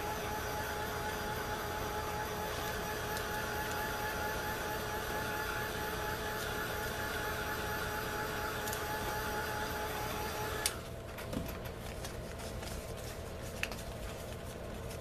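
A handheld craft heat tool blowing steadily with a humming tone, drying a wet painted index card. It cuts off suddenly about eleven seconds in, leaving a few light handling clicks.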